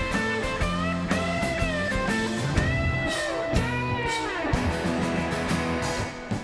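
A live rock band playing an instrumental passage with guitar to the fore, without singing.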